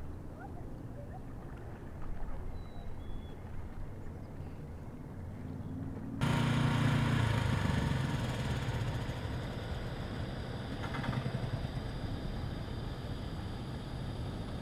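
Quiet outdoor air with a couple of faint chirps. About six seconds in there is a sudden cut to the louder, steady drone of heavy diesel construction equipment running, with a brief rapid rattle partway through.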